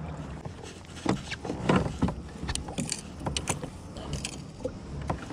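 Irregular clicks, taps and knocks of gear on a fishing kayak, over a low steady rumble.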